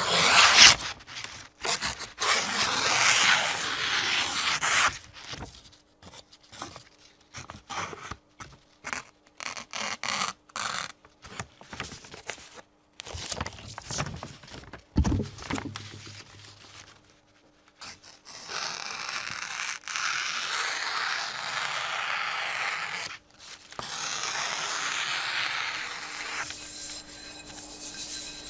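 Freshly sharpened Japanese chef's knife being tested for sharpness: its edge slices and scrapes through a test material in many short strokes, with longer steady draws later on. A single low thump comes about halfway through.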